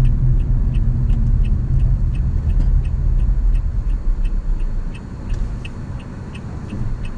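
Car's turn-signal indicator ticking evenly inside the cabin, over the low rumble of the car moving. The rumble fades about five seconds in as the car slows to a stop.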